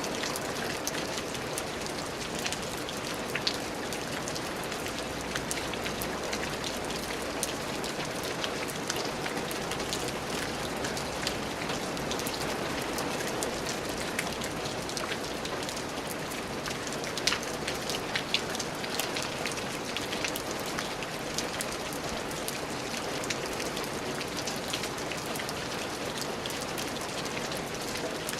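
Steady rain falling on a surface, with many individual drops ticking sharply through the constant patter.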